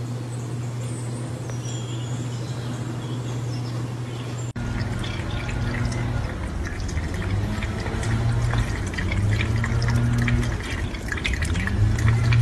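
For the first four and a half seconds or so, faint high bird chirps over a steady low hum. Then a kitchen faucet runs into a stainless-steel sink, with water splashing and dripping, while cats drink from the stream.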